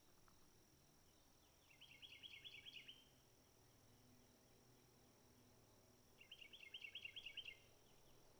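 A songbird singing two short trilled phrases of quick repeated notes, about four seconds apart, over a faint steady high-pitched tone.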